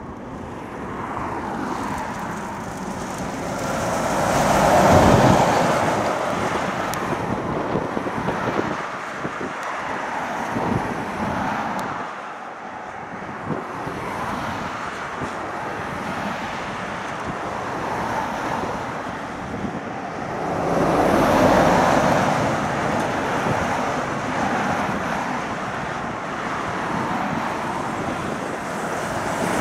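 Traffic on a fast main road passing close by, with a steady road roar and vehicles swelling and fading as they go past. The loudest two pass about five seconds in and again about twenty-one seconds in. Wind is on the microphone.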